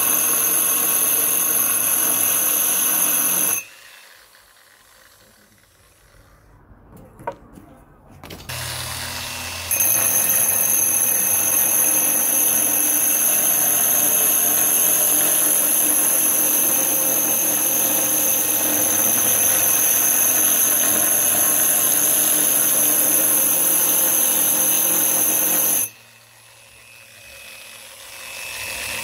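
Angle grinder fitted with a diamond core bit, drilling into a granite countertop: a loud, steady high-pitched whine. It stops a few seconds in for about six seconds, runs again for about sixteen seconds, and stops near the end.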